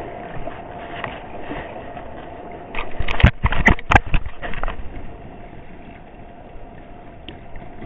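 Camera handling noise: a cluster of loud knocks and rubbing for under two seconds, about three seconds in, as the camera is uncovered and swung round, over a faint steady hum.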